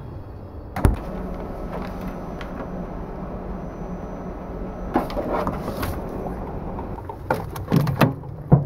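Things being handled inside a small refrigerator: a glass bottle and a plastic bag knocking against wire shelves and the door. There is one sharp knock about a second in, a rustling stretch around the middle and several clunks near the end, over a steady low hum.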